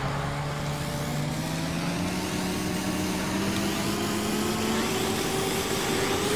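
A loud, dense rushing sound with several pitched tones that climb slowly and steadily throughout, like an intro riser sound effect, cutting off suddenly at the end.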